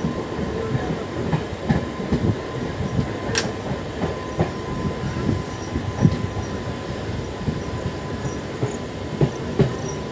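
MEMU electric passenger train running along the track, heard from on board: a steady rumble of wheels on rail, broken by irregular knocks and clatter over the rail joints, with a faint steady high tone.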